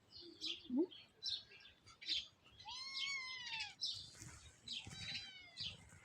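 A bird chirping: short, high chirps repeat throughout, with one longer call about three seconds in that rises and then falls in pitch.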